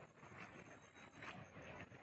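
Faint footsteps on a leaf-strewn forest path, a little under two a second.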